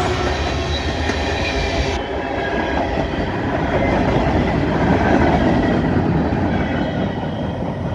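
Freight cars, gondolas among them, rolling past close by: a steady, loud rumble of wheels on rail with a faint wheel squeal.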